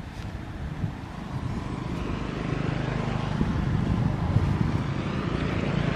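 A motor vehicle's engine running, a steady low hum that swells louder through the middle and eases off near the end.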